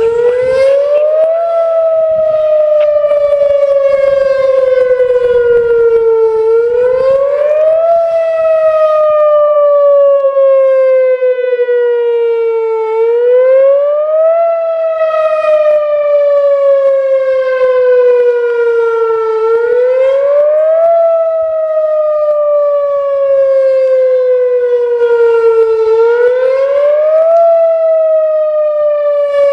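Whelen Vortex R-4 tornado siren sounding its fast wail for a tornado drill test. The pitch climbs quickly, then slides slowly back down, over and over, about once every six and a half seconds.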